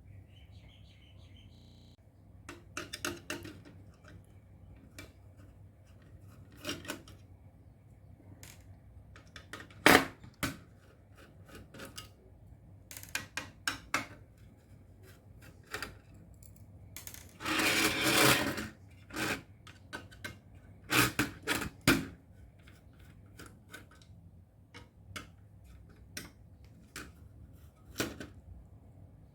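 Small tools and parts being handled on a workbench during a circuit-board repair: scattered clicks and knocks, the sharpest about ten seconds in, and a scraping, rustling stretch of about a second around eighteen seconds.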